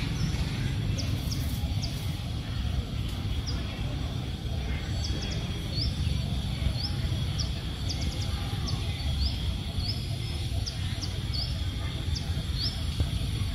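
Forest ambience: a bird repeating short, high, upward-flicking chirps, roughly one or two a second, starting about a third of the way in. Under it runs a steady low rumble, with a faint steady high tone.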